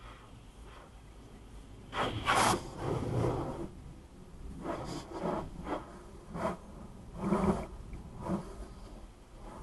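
Hand-held pressure wand spraying water onto the car in short, irregular gushes, heard from inside the car as the attendant pre-washes it.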